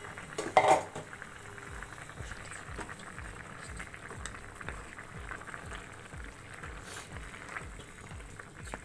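Curry bubbling as it simmers in a pan, with a brief loud clatter of a utensil against the pan about half a second in.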